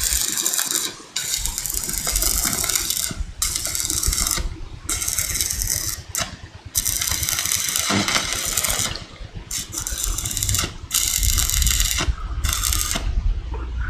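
Paint spray gun hissing in repeated bursts of about a second each with short gaps between, as the steel frame of a mesh cage is sprayed, over a low rumble.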